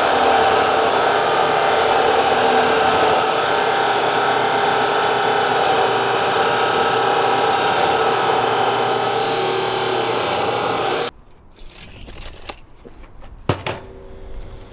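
A power tool cutting steel, running loud and steady for about eleven seconds, then stopping abruptly. Light metallic clicks and clinks follow.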